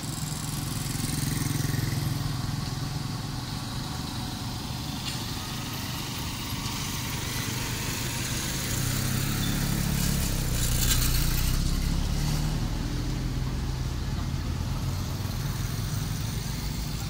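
Motor vehicle engine running steadily, swelling about two-thirds of the way through as it passes on the road.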